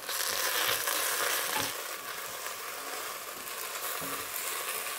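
Diced celery, carrots and onions with tomato paste sizzling as they are pan-roasted dark in a pot and stirred with a spoon. The sizzle is a little louder for the first couple of seconds, then settles.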